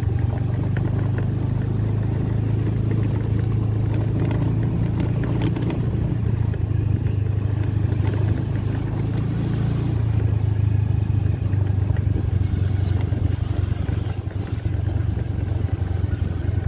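Motorcycle engine running while riding along a road, recorded from the bike itself, with road noise; the engine note steps up and down a few times.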